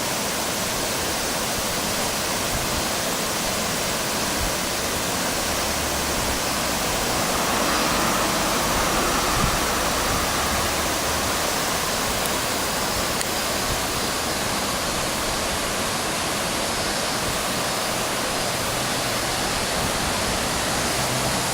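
Steady rushing of Nuno-no-taki, a low waterfall where the Houki River's main flow is funnelled and drops, running with a good volume of water after rain.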